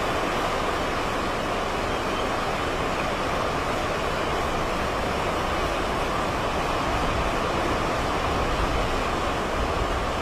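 Strong hurricane wind blowing in a steady rush, buffeting the microphone with a fluctuating low rumble that swells a little about eight seconds in.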